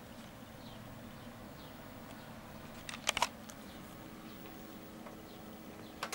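A CRT television's front-panel buttons being pressed: a couple of quick clicks about three seconds in and another couple near the end, over a low steady hum.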